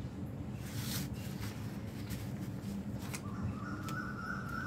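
Paper rustling and creasing as a sheet of paper is folded by hand, with a brief crinkle about a second in. A steady low background rumble runs underneath, and a drawn-out higher tone comes in about three seconds in.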